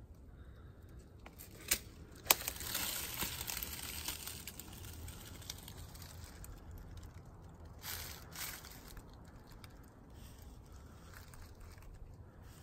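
Close rustling and crinkling, opening with two sharp clicks about two seconds in and a shorter rustle about eight seconds in.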